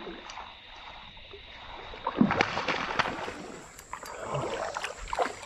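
Creek water splashing and sloshing as a hooked bass thrashes at the surface, loudest in a burst of splashes about two seconds in.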